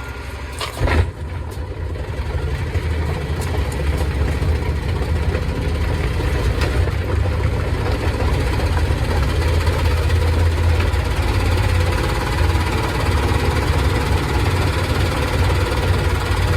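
Samsung washing machine drum spinning up: a steady low rumble that builds gradually over the first several seconds, with a short clatter about a second in.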